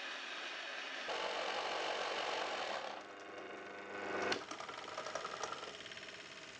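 Home-built corn-milling rig running: a 400-watt electric grain mill whirring, with the small-motor-driven vibrating sieve beneath it rattling fast and evenly. The sound shifts a second or so in and again about three seconds in, and there is a sharper click a little after four seconds.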